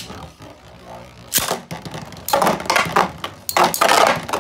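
Metal-wheeled Beyblade spinning tops in a plastic stadium. A sharp crack comes about a second and a half in as the second top is launched, then dense rattling clashes as the two tops strike each other and the stadium walls.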